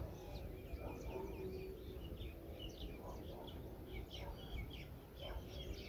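Small birds chirping in many quick, short calls throughout, over a steady low background noise.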